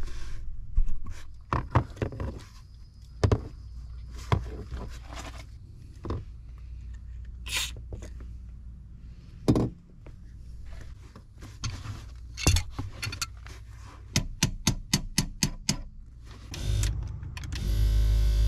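Clicks, knocks and scrapes of hands and tools working in a car's power seat frame, with a short hiss of aerosol slide lubricant being sprayed on the seat motor drive screws. A quick run of clicks comes about two-thirds of the way in, and a louder steady noise lasts about two seconds near the end.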